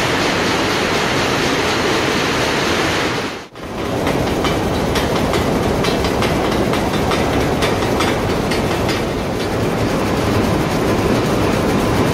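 Steady, loud mill machinery noise. About three and a half seconds in it breaks off briefly, then a jacquard loom is heard weaving at speed with a rapid, even clatter.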